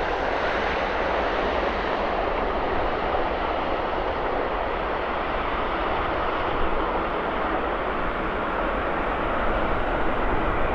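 Jet airliner engines giving a steady, even rush of noise with no distinct whine or change in level.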